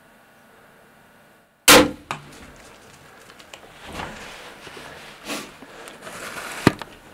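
A single loud rifle shot about a second and a half in, taken at a whitetail buck. Rustling and handling noise follow, with a sharp click near the end.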